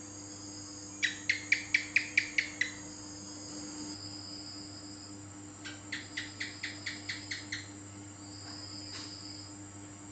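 House gecko calling: two series of about eight sharp chirps, roughly four a second, the second series a few seconds later and quieter.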